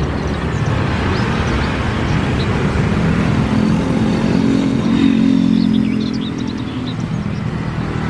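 Twin-engine jet airliner's engines running at close range by the runway: a loud, steady rush of jet noise, with a deeper hum swelling in the middle and easing a little near the end.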